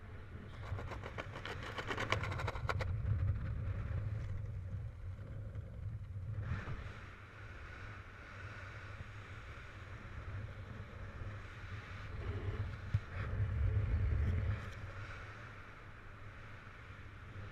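Wind buffeting a helmet camera's microphone during a descent under an open parachute: a steady low rumble with a rapid fluttering in the first three seconds and a louder gust about thirteen seconds in.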